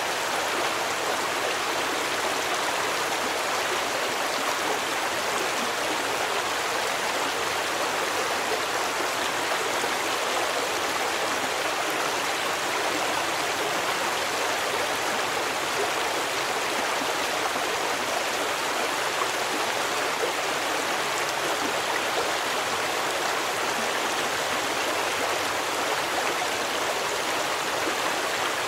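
A stream of water running steadily, an even, unbroken rush of flowing water with no single splashes or other sounds standing out.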